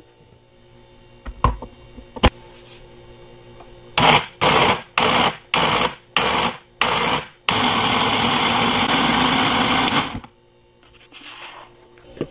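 Braun countertop blender pulsed six times in short bursts, then run continuously for about two and a half seconds before cutting off abruptly, blending chopped fruit with milk into a smoothie. Two light knocks come a few seconds before the motor starts.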